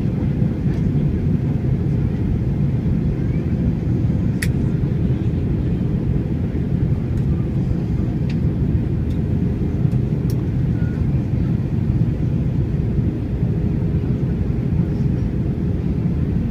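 Cabin noise of an Airbus A321 on final approach: the steady low rumble of airflow and its CFM56 engines, with a faint steady hum. A few brief sharp ticks, typical of cabin rattles, come through about four, eight and ten seconds in.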